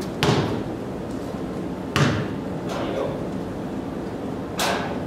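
Rubber ball bounced on a rubber-matted floor in a large hall: three sharp smacks roughly two seconds apart, each with a short echo, and a fainter knock between the second and third.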